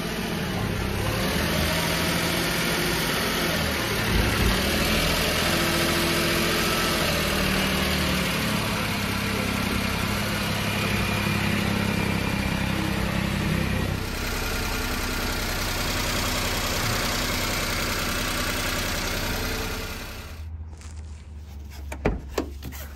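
1993 Daihatsu Hijet mini truck's small three-cylinder engine running as the truck rolls slowly overhead, a steady low drone under a noisy hiss. About twenty seconds in the engine sound drops away, and a few sharp clicks follow near the end.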